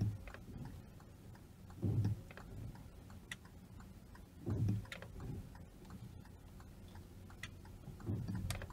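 Car's turn-signal indicator ticking steadily in the cabin as the car turns left to park, with a few low thumps every two to three seconds.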